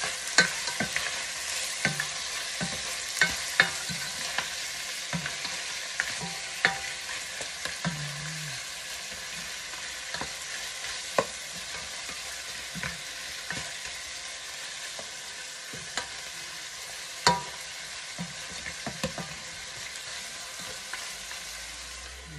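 Pork belly, sausage and carrots sizzling as they fry in a pot, stirred with a spatula that scrapes and knocks against the pot at irregular moments, one knock about 17 seconds in louder than the rest. The sizzle eases slightly toward the end.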